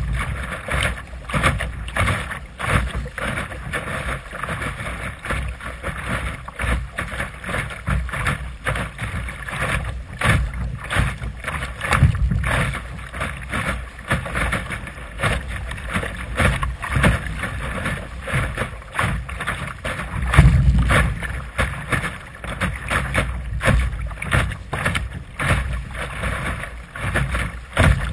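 Choppy water splashing and slapping against the bow of a Sunfish sailboat's hull as it sails, in irregular bursts, with wind rumbling on the microphone. The rumble swells heavily for a moment about two-thirds of the way in.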